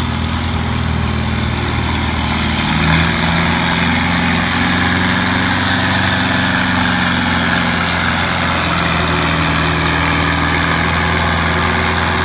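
Farmall pulling tractor's engine running steadily at low speed. About three seconds in it steps up to a slightly higher, louder speed and holds there.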